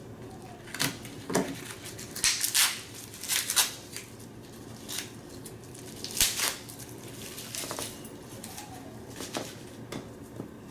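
Euro cylinder locks and their keys being handled: scattered metal clicks and scrapes in small clusters, with short pauses between.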